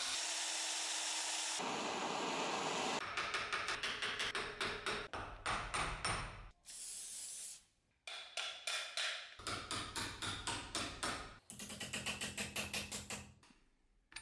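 A cordless drill running steadily as it bores into a steel bench-vise jaw. Then comes a rapid series of hammer blows on metal, several a second, in bursts with short pauses between.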